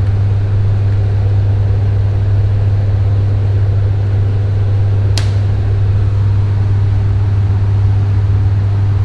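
Steady low electrical hum of a power transformer in an 11 kV high-voltage room, with a single sharp click about five seconds in.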